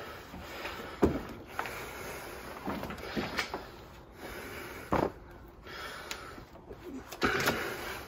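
A microfiber towel wiping a wet, freshly sanded plastic headlight dry, rubbing with a few short squeaks.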